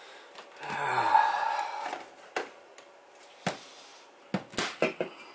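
Hands working a vinyl record player: a rushing noise lasting just over a second about a second in, then a string of sharp clicks and knocks from handling its controls.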